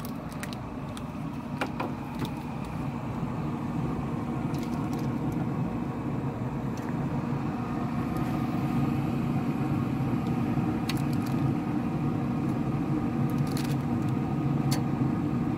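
Metal tongs click against a pellet grill's steel grate a few times as bacon-wrapped pieces are set down. Under them runs a steady low mechanical hum that grows louder.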